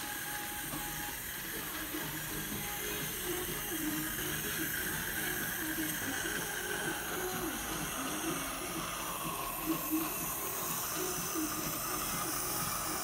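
Dental saliva ejector drawing air and saliva with a steady hiss.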